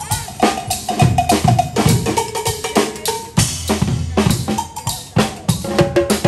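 Live percussion band playing drum kits, congas and cymbals in a fast, busy groove, with short pitched notes over the drumming.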